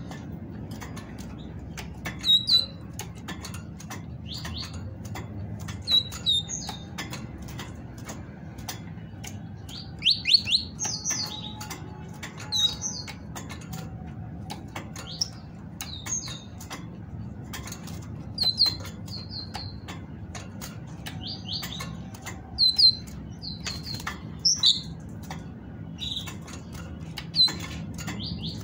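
Caged female great tit calling: short, high chirps in quick clusters of two to four, repeated every couple of seconds, the call keepers use to prompt males to sing. Light clicks and wing flutters come through as the bird hops about the cage.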